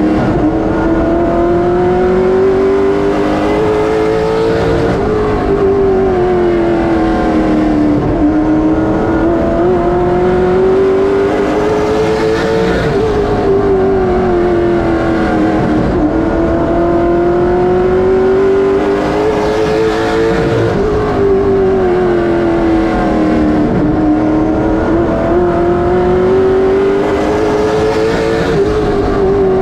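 NASCAR late model stock car's V8 engine heard from inside the cockpit at race speed on a short oval. The engine note climbs steadily along each straight, then drops sharply as the throttle is lifted for each turn, four times about eight seconds apart.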